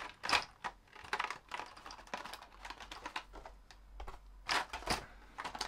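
Hard plastic fishing lures and their packaging being handled and set down: a run of irregular light clicks and taps, a few louder ones about a second in and near the end.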